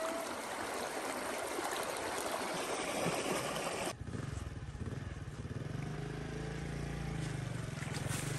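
River water rushing and splashing around a person wading. About halfway through it gives way abruptly to a small motorcycle engine running steadily at low speed.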